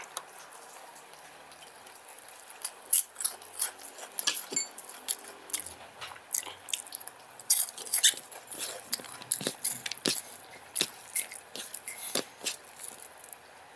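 Close-up mouth sounds of a person eating rice and curry by hand: chewing with lip smacks and clicks, an irregular quick run of them that starts a couple of seconds in.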